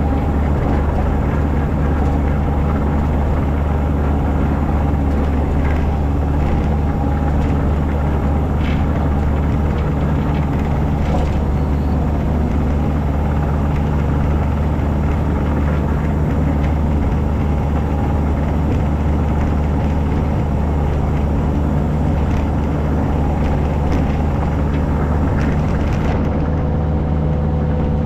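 The engine of a piece of heavy equipment, running steadily at an even speed throughout, with a few faint knocks over it. Its note shifts slightly near the end.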